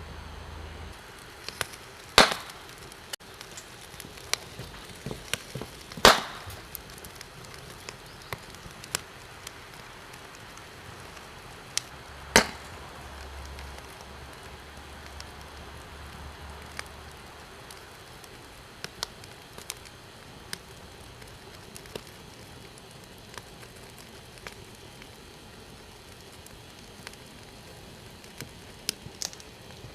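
Crackling fire: a steady hiss with scattered sharp pops and snaps, and three loud pops about 2, 6 and 12 seconds in.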